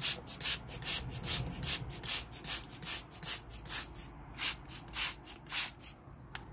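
Handheld trigger spray bottle squirted over and over, misting water onto an eagle-owl: short hisses about three or four a second, with a brief pause about four seconds in, stopping near the end.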